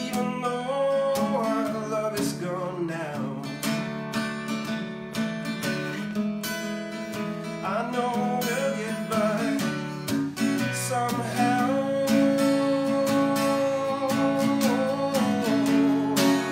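Acoustic guitar strummed in steady chords, with a man singing a melody over it: a live solo song performance.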